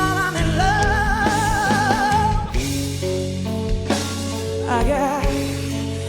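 Live blues-rock music: a woman's voice holds a long note with wide vibrato over the band's sustained bass and guitar, then a shorter wavering phrase near the end.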